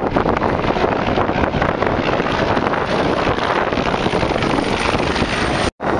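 Helicopter in flight, a steady engine and rotor noise heavily mixed with wind buffeting on the microphone, with a faint high whine in the second half. The sound cuts out for an instant near the end.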